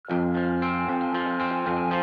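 Song intro on electric guitar: a held chord under notes picked about four times a second, starting abruptly.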